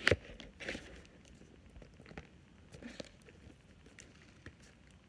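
Cardboard doll box and its plastic packaging being handled: a sharp knock right at the start, then scattered light clicks, taps and rustles as the packaging is worked to free the doll, which is held in by an elastic.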